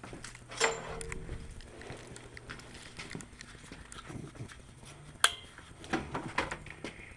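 Scattered knocks and clicks of handling as a center console is test-fitted on a pickup truck's bench seat. The loudest are two sharp clicks, about half a second in and about five seconds in, over a faint low hum.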